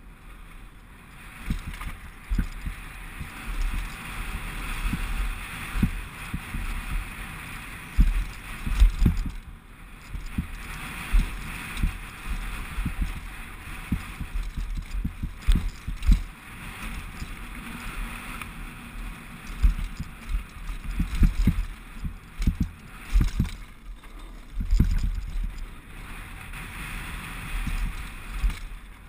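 Specialized Big Hit downhill mountain bike ridden fast over a rocky gravel trail: a steady hiss of tyres on loose stone, broken by frequent heavy thumps and clatter as the wheels and suspension strike rocks.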